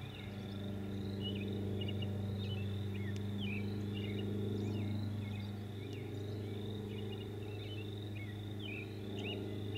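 Open-field ambience: small birds chirping in short, scattered, sweeping notes over a steady high insect-like trill, with a steady low hum underneath.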